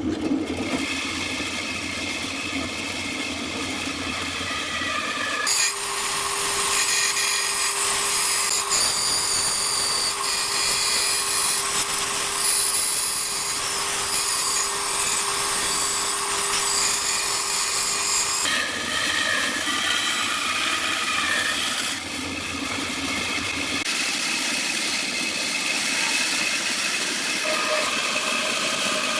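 Electric power tools cutting and shaping wood with a steady, high whine. The sound changes abruptly several times, about five seconds in, near eighteen seconds and again around twenty-two seconds.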